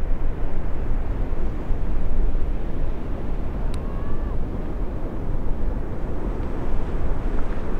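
Heavy ocean surf breaking, with wind buffeting the microphone: a steady low rushing rumble of waves and whitewater.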